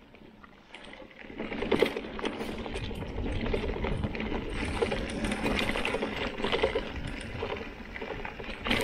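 Mountain bike rattling and clicking fast as it rides over a bumpy grass track, starting about a second in.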